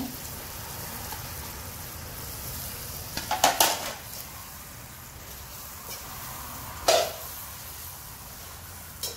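Eggplant pieces sizzling in a hot kadhai of potato masala, with a metal slotted spoon clattering against the pan as they are stirred: a burst of clanks about three and a half seconds in, a single sharp knock about seven seconds in, and a light click near the end.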